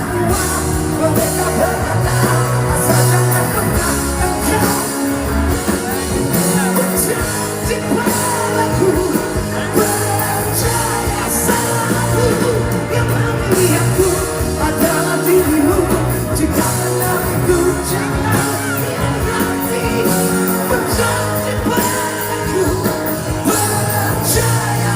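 A band playing a pop-rock song with a lead singer, loud and continuous.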